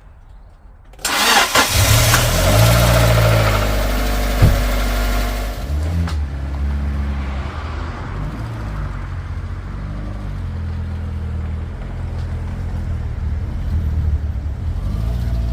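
Fiat 500 engine starting about a second in: a few seconds of loud cranking and running at raised revs, then settling to a steady idle.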